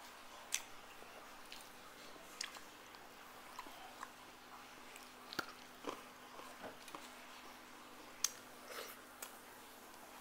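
Eating sounds: chewing and fingers working food on a metal plate, scattered sharp clicks and crunches at irregular moments, the loudest about half a second in and about eight seconds in.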